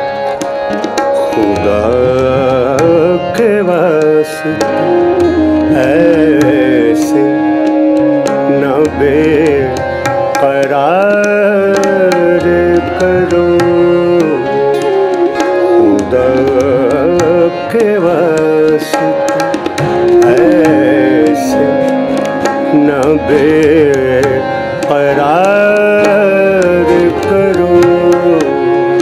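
A male singer's slow, ornamented vocal line, accompanied by a harmonium holding steady reed chords and a tabla keeping a rhythm with deep bass strokes.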